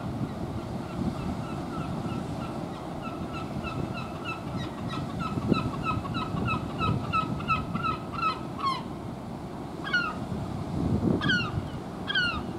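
A run of short, high animal calls repeating about two to three times a second, then after a short pause a few separate falling calls near the end, over steady wind noise.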